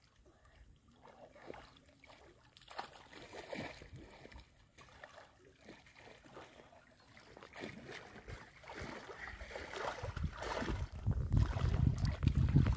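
Muddy water sloshing and splashing around a person wading and groping with his hands in the shallows, with small splashes at first and a heavier, louder low sloshing in the last few seconds.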